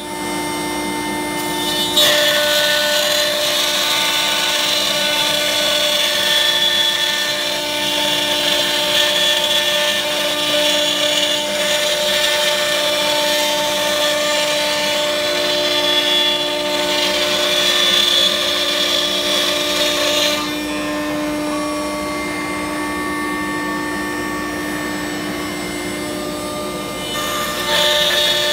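CNC router spindle milling a wooden workbench top: a steady machine whine over continuous cutting noise. The cutting noise eases for several seconds about two-thirds of the way in, then comes back near the end.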